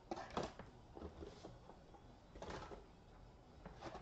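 Faint handling noise from boxes of trading cards: a few brief, soft rustles and knocks, roughly a second apart.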